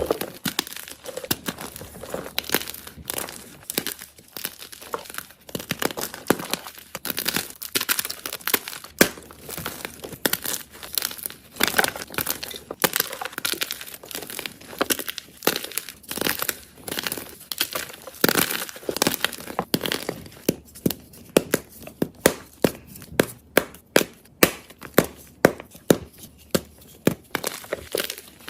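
A fresh block of soft gym chalk being crushed, giving dense crunching and crackling. Later on it settles into a regular rhythm of crunchy squeezes, about two a second.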